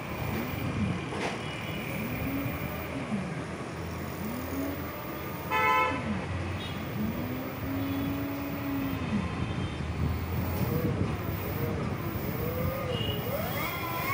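60 V 2 kW brushless electric motor whining as it spins up and winds down again, over and over, its power cut each time the brake switch is pressed. Near the end it speeds up into a higher whine that climbs and wavers. A short, loud horn-like tone sounds about six seconds in.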